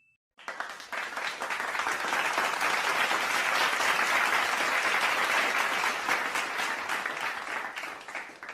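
Crowd applause: dense clapping that builds over the first couple of seconds, holds steady, then tapers off and cuts out near the end.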